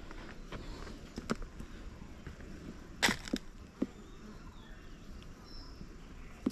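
Several sharp, light knocks and clicks of wood and corrugated tin being handled on top of a wooden beehive box, the loudest few together about three seconds in.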